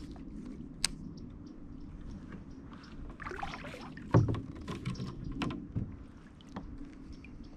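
Kayak paddle strokes: the blade dipping and pulling through calm water with splashes and drips, one louder stroke about four seconds in.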